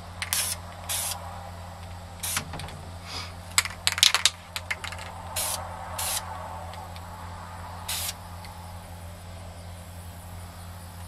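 Aerosol spray paint can spraying in a series of short bursts, about eight of them, the last about eight seconds in. The paint is being sprayed over grass blades laid on a rifle to stencil a camouflage stripe pattern.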